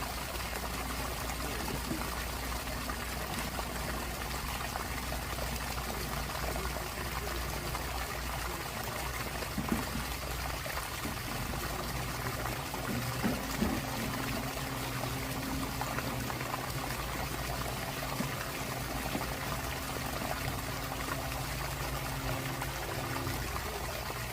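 Water pouring steadily from the outlet of a sump pump discharge line.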